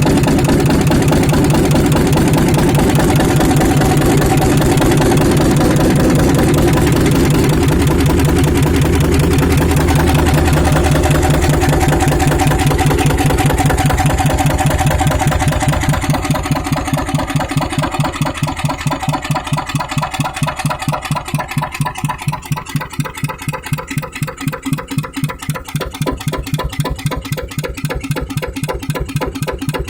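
Vintage Yanmar N22Y single-cylinder diesel engine running steadily, then throttled back about halfway through so that its separate firing beats can be heard, slowing toward the end.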